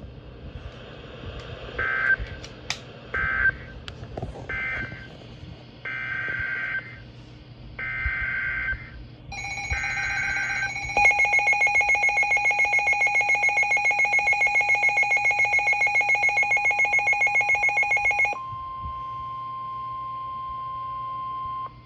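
Emergency Alert System tones: six short buzzy data bursts over the first ten seconds, then a rapidly pulsing electronic alert tone for about seven seconds, then a steady single tone.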